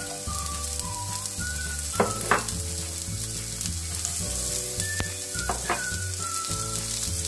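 Oil sizzling in a non-stick frying pan as julienned carrots and potato strips are tipped in and pushed around with a plastic spatula, with a couple of sharp clicks of utensil on pan about two seconds in and a few more later. Soft background music runs underneath.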